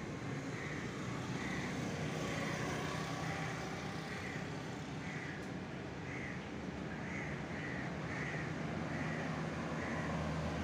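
A bird calling over and over, about once a second, over a low steady rumble.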